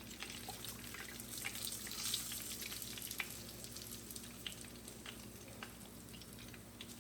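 Faint, scattered crackles and pops of hot frying oil over a low hiss, the oil still hot after the burner has been switched off.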